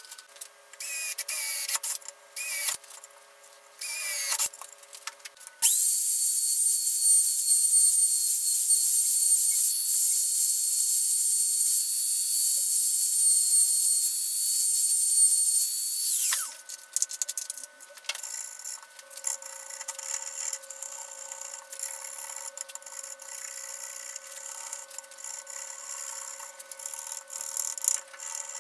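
A small handheld trim router trimming along a guitar neck's fretboard edge: after a few short stop-start bursts, it runs at a steady high whine for about ten seconds, then spins down. Quieter uneven scraping and rubbing on the wood follows.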